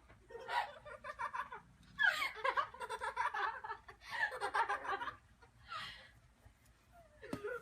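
A person laughing in several bouts of rapid, breathy chuckles.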